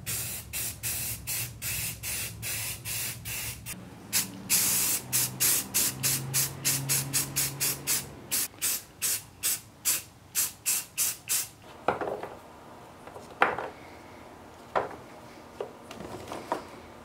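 Aerosol spray paint can spraying black paint in short bursts, two to three a second, with one longer spray partway through. The spraying stops about two-thirds through, and a few light knocks follow.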